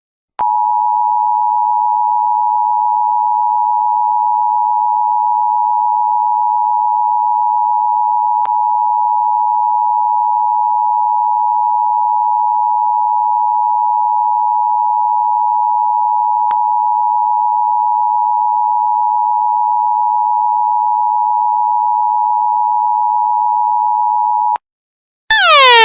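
Electronic emergency alert tone: one steady, unbroken beep-like pitch held for about 24 seconds, then cut off abruptly. Just before the end a new alarm starts, a sweep falling quickly in pitch, repeating about once a second.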